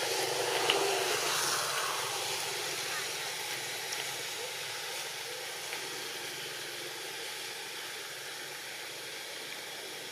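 Steady hiss-like outdoor background noise that slowly fades, with a few faint clicks.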